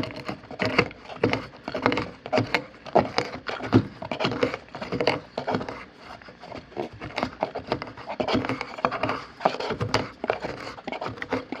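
A stainless steel pestle pounding and grinding peanuts in a 304 stainless steel mortar with its plastic lid on: an irregular run of crunching knocks, two or three a second.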